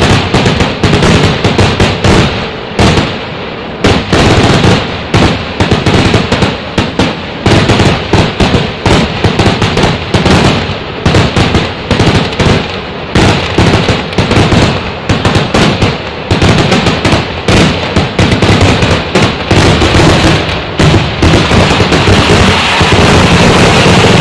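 A vedikkettu fireworks barrage: rapid, irregular firecracker cracks and bangs with brief lulls, merging into an almost unbroken rattle near the end.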